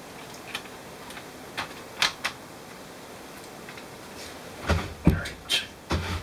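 Light clicks and taps of plastic and small metal laptop parts being handled and fitted, a few scattered at first, then a cluster of louder knocks and thumps near the end.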